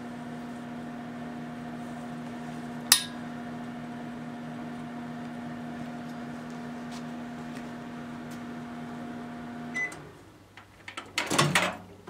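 Microwave oven running with its steady hum while vacuum tubes burn inside, with one sharp crack about three seconds in. Near the end the hum stops with a short beep, then the door latch clunks and the door rattles open.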